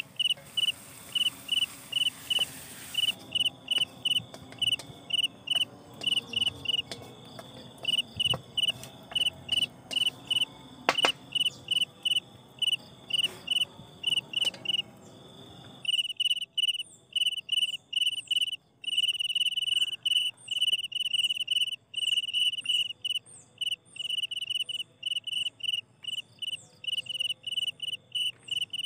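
Crickets chirping in rapid, even pulses, turning louder and more continuous about halfway through, with a few soft knocks in the first half.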